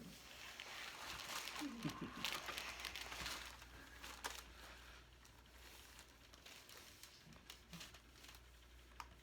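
Faint rustling and crinkling on the chiropractic table as the patient, lying on her back, is moved and positioned during a neck and upper-body adjustment, with a few short sharp clicks.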